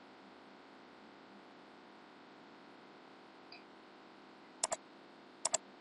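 Faint steady hiss with two computer mouse clicks near the end, about a second apart, each a quick double tick.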